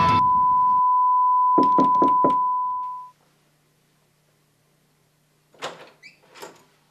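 A loud, steady, high-pitched tone rings on alone and fades out about three seconds in. Partway through it comes a quick series of four knocks on a wooden door, and near the end two softer thuds.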